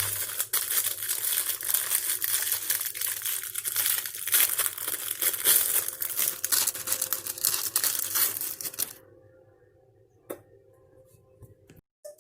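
Dense crinkling, crackling noise, like plastic or packaging being handled, for about nine seconds, then it stops; a single click follows near the end.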